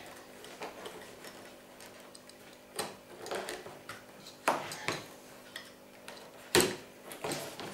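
Stanley knife cutting around a pattern in vegetable-tanned leather: a handful of short, sharp clicks and scrapes of the blade and the leather, spaced out over a few seconds, with the sharpest near the end.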